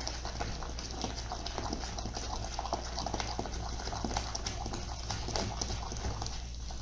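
Thick brigadeiro mixture of jabuticaba jam and condensed milk boiling in an aluminium pan while a silicone spatula stirs it, with many small irregular pops and spatters. It is being cooked down toward the point where it comes away from the bottom of the pan.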